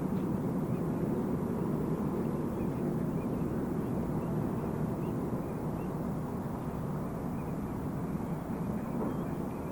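Steady low engine rumble that slowly fades, with a few faint high chirps over it.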